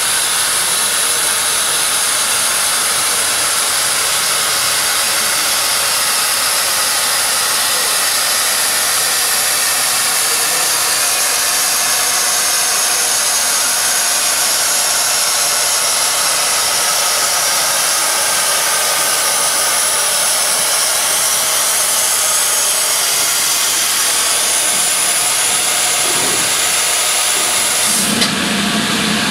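Steam hissing loudly and steadily from beneath Southern Railway Q class 0-6-0 No. 30541 as it stands, billowing out around the wheels and frames. Near the end the high hiss cuts off abruptly and a lower steady hum takes over.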